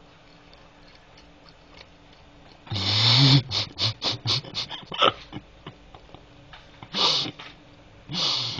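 A person's breathy, snorting laughter close to the microphone, starting about three seconds in as a loud burst followed by quick short huffs, with two more bursts near the end.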